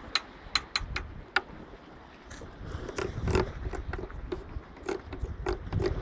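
A child clambering on wooden-slatted steps: a quick run of sharp clicks, then knocks and scrapes against the slats, with wind buffeting the microphone from about two seconds in.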